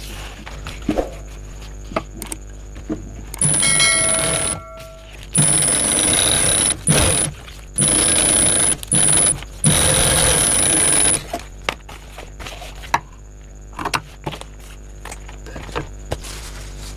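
Primex high-speed industrial sewing machine stitching in a string of short runs, starting and stopping abruptly, with a thin high whine while it runs: one brief run about three seconds in, then several more over the next six seconds. Between runs there are scattered clicks and fabric handling.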